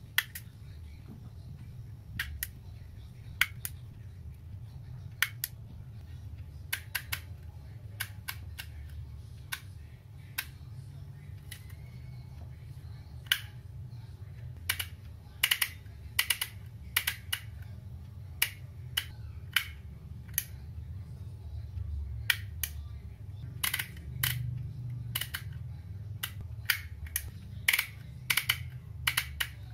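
Motex handheld emboss label maker clicking as its letter wheel is turned and its lever pressed to emboss letters into the plastic tape. Sharp irregular clicks, sparse in the first half and coming several a second in the second half, over a low steady hum.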